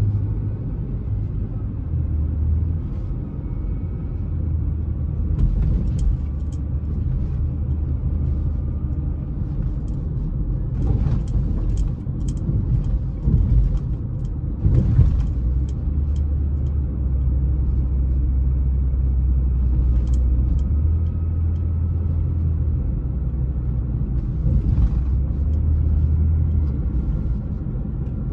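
Car driving on a city street, heard from inside the cabin: a steady low rumble of engine and tyre noise, with a few short knocks here and there.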